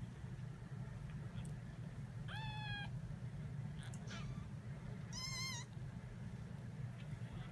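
An 18-day-old kitten mewing: a high-pitched mew about two and a half seconds in, a faint one a little later, and a wavering mew just after five seconds. A steady low hum runs underneath.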